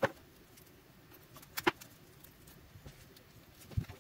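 Handling sounds of an opened lithium-ion battery pack and hand tools on a wooden workbench: a sharp knock right at the start, a click about a second and a half in, and a low thump near the end.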